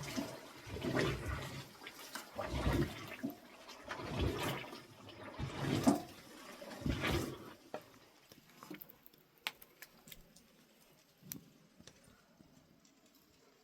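Water sloshing and splashing in repeated surges, as when spoons and ladles are rinsed by hand. About seven seconds in the water stops, leaving a few light clicks and clinks.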